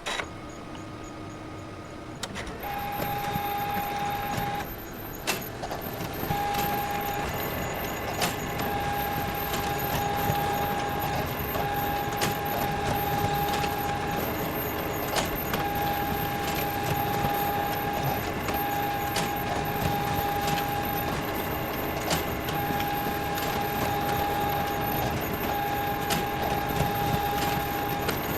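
Photocopier starting up about two seconds in and then running steadily: a mechanical whir with a high whine that cuts out briefly every few seconds, and scattered clicks.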